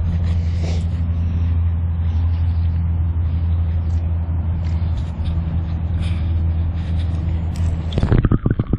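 Steady low hum with a few light splashes of water. About eight seconds in, the camera goes under the water and the sound turns to muffled underwater sloshing and gurgling.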